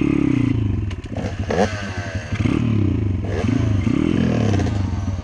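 Dirt bike engine running at low revs on a trail, the revs rising and falling several times as the throttle is blipped.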